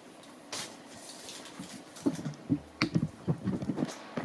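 Handling noises inside an open desktop PC case: a brief rustle, then a quick run of clicks and light knocks starting about two seconds in.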